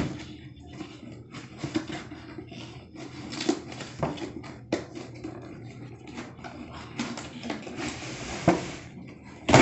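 Cardboard box and its inner tray being handled and pulled open by hand: irregular taps, knocks and scrapes of cardboard, with a denser stretch of rustling near the end.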